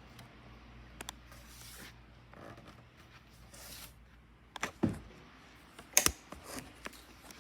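A door swinging shut under its door closer: a few soft knocks and a low thump, then a sharp latch click about six seconds in.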